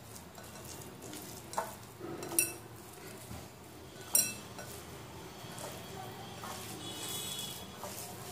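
A bare hand squeezing and tossing moist poha with grated carrot and chopped onion in a glass bowl: soft squishing and rustling, with three sharp clinks against the glass in the first half.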